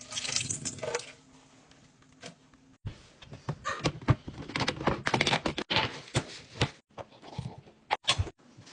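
Kitchen handling noises: a string of knocks, clicks and light thuds as utensils and food items are moved about, with a short rushing, hiss-like noise in the first second.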